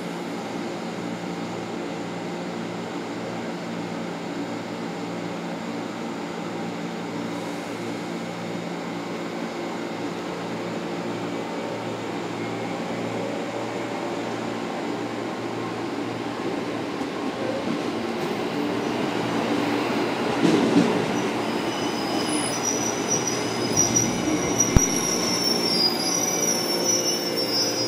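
JR 211 series electric train pulling into a station platform, its running noise growing louder as it comes alongside. High-pitched wheel and brake squealing near the end as it slows, with one sharp knock.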